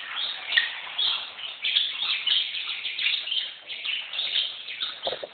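Cut-throat finches chirping: a continuous run of short, high chirps close together, with a brief low bump near the end.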